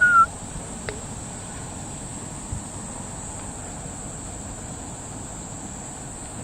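Insects buzzing steadily in a high, unbroken drone. A brief, loud high chirp sounds right at the start.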